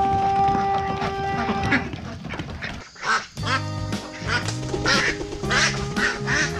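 Ducks quacking several times over background music; the music breaks off about three seconds in and a new passage with a bass line starts.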